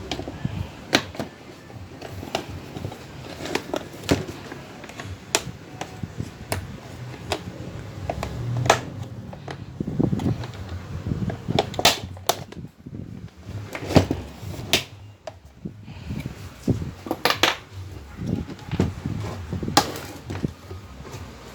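Irregular clicks and knocks of electric fan parts being handled and fitted together during reassembly.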